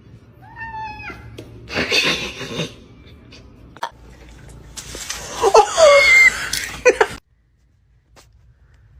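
People laughing in bursts, loudest between about five and seven seconds in, then the sound cuts off suddenly.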